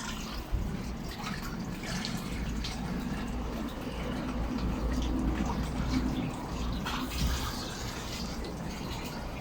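Water sloshing and dripping over a low rumble that grows louder in the middle, with a few faint ticks.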